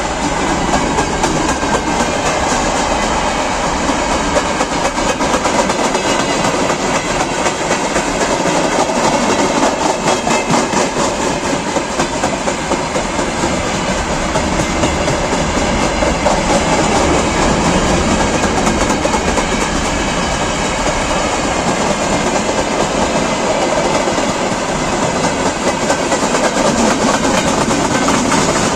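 Freight train wagons rolling past close by: a steady rumble with the clatter of wheels over the rail joints. Covered wagons give way to tank cars near the end.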